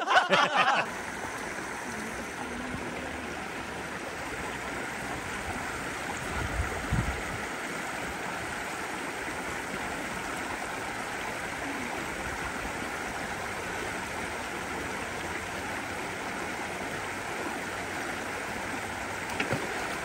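A fast-flowing river stream running, a steady rush of water.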